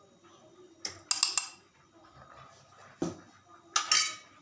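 A spoon clinking against a dish about four times, two of the knocks, about a second in and near the end, ringing briefly.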